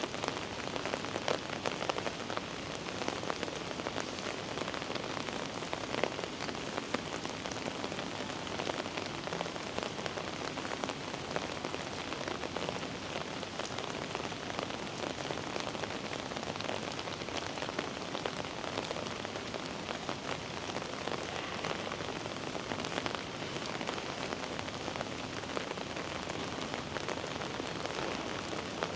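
Heavy rain falling steadily: an even hiss of rain on wet pavement, with many sharp drop ticks close by.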